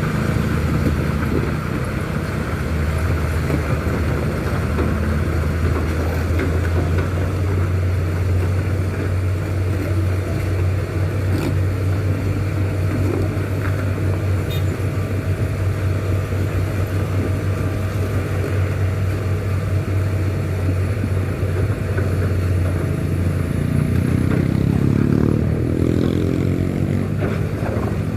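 Heavy diesel engine running hard under load, a steady low drone, with an engine rising in pitch near the end as it revs up.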